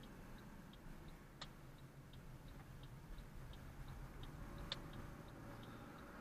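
Car turn-signal indicator clicking steadily, about three clicks a second, over a low cabin rumble. Two sharper knocks come about a second and a half in and near the end.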